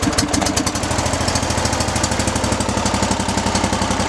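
Hustler FasTrak zero-turn mower's engine running steadily with a rapid, even pulse, just started through a push-button starter switch that bypasses the key switch's faulty start circuit, which only clicked.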